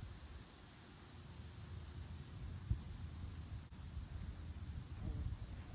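A cricket's steady, unbroken high-pitched trill, over a low outdoor rumble.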